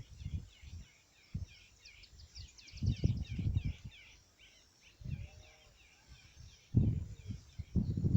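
A small bird chirping in a quick repeated series for a few seconds, over several short low thumps and rumbles.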